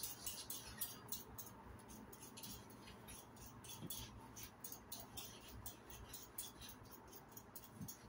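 Faint, quick, irregular ticks of kitchen knives cutting food, blade tapping on a plastic cutting board several times a second.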